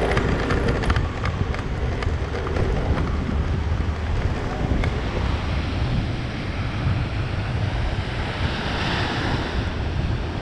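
Sea surf washing onto a sandy beach, with wind buffeting the microphone in a low rumble. One wave's wash grows louder about eight seconds in.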